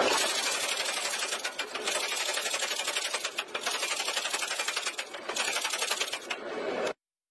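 Power hammer forging a red-hot steel bar, its ram striking in rapid, even blows. The sound cuts off suddenly near the end.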